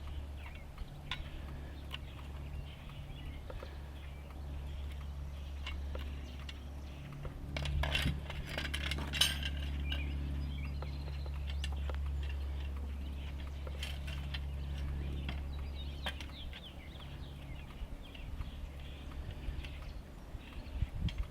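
Car jack being cranked up with its supplied handle, with scattered small metallic clicks and clinks, over a steady low hum. A louder rushing stretch comes about eight seconds in.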